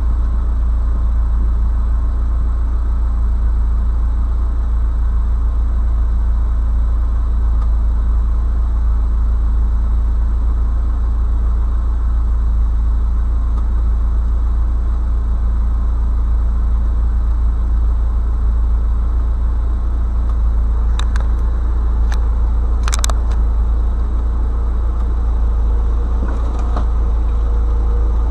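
Steady low rumble of a car engine heard inside the cabin through a dashcam, with two short clicks late on.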